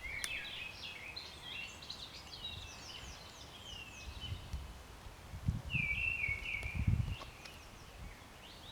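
Woodland birdsong: many short high chirps and falling whistled notes, with a few low muffled thumps in the second half.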